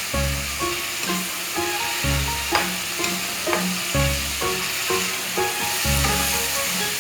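Okra (bhindi) sizzling as it fries in a pan, a steady hiss, under background music with a recurring bass note.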